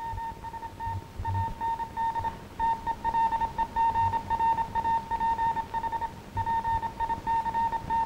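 Morse code on a single mid-pitched beep tone, keyed on and off in short dots and longer dashes with brief gaps between characters, heard over the hiss and occasional low thumps of an old optical film soundtrack.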